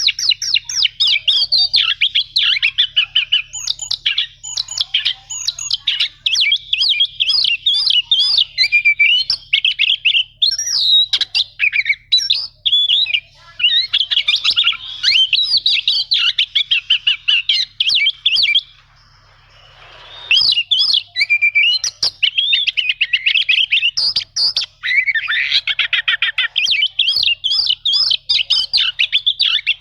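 Oriental magpie-robin (kacer) singing a fast, almost unbroken string of high chattering and rolling notes. It breaks off for about a second and a half a little after two-thirds of the way through, then goes on.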